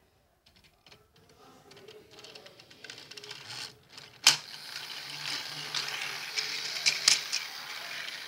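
Battery-powered toy Thomas the Tank Engine running on plastic track: its small motor and gears whirring with a clicking rattle, growing louder as it approaches. A single sharp click about four seconds in is the loudest sound, then the gear whirr and clatter carry on steadily.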